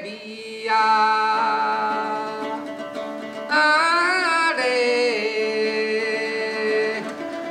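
Elderly man singing a Hengchun folk song in Taiwanese Hokkien in two long drawn-out phrases with wavering pitch, accompanying himself on a plucked moon lute (yueqin).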